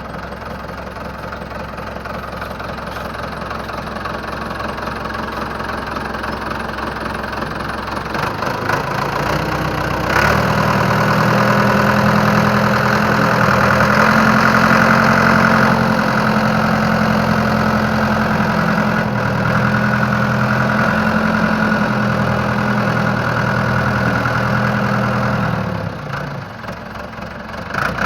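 Ford 655A backhoe's four-cylinder engine running, first at a steady idle that slowly grows louder. About ten seconds in it revs up to a higher, louder speed and holds there, easing off briefly near the end before picking up again.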